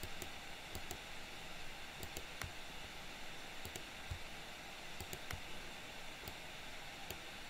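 Computer mouse and keyboard clicks, about a dozen short, irregular clicks, over a faint steady hiss.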